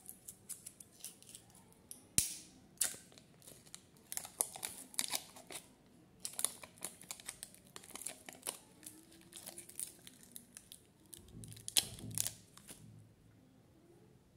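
Thin plastic jelly cups crinkling and clicking as they are handled, and the sealed film lid of one being peeled off. Many short, irregular crackles, with sharp snaps about two seconds in and again near the end.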